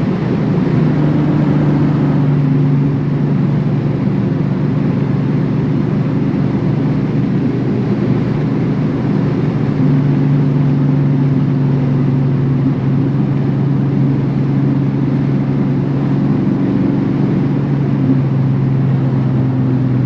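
Turbocharged Dodge Challenger SRT8's V8 engine droning at a steady, nearly constant engine speed while cruising, with only slight rises and dips in pitch.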